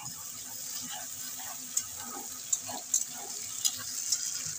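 Chopped onions and ginger-garlic paste sizzling in hot oil in a non-stick karahi. A plastic spatula stirs them, scraping and tapping the pan with a few sharp clicks in the second half.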